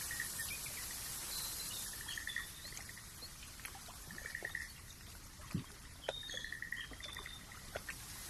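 Countryside nature ambience: a steady hiss of trickling water, with a short pulsed trill from a small animal repeating about every two seconds and brief high chirps, plus a few faint clicks.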